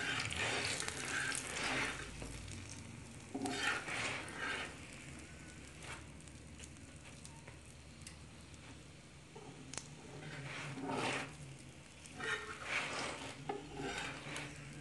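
Potato-cauliflower stuffed paratha sizzling in ghee on a hot iron tawa. A fork presses and scrapes it against the pan, giving several short spells of louder sizzling and scraping.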